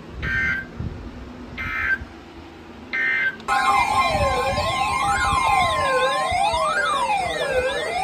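Emergency Alert System end-of-message signal: three short bursts of buzzing digital data tones. About three and a half seconds in, loud wailing siren-like tones begin, several of them sweeping up and down and overlapping, over a steady tone.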